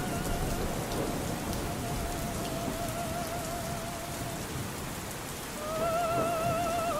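Steady rain on a surface, with faint opera singing beneath it: long held high notes with vibrato. One note fades out midway, and another, louder note comes in near the end.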